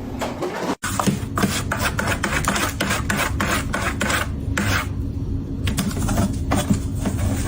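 Rapid, repeated rasping scrapes, about three strokes a second, with a short pause about five seconds in.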